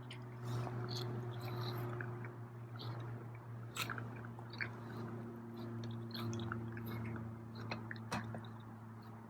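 A cat eating chunky wet cat food with its mouth open: irregular wet clicks and smacks of chewing.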